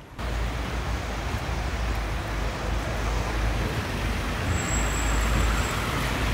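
Steady road traffic noise, a continuous low rumble of motor vehicles with no distinct events.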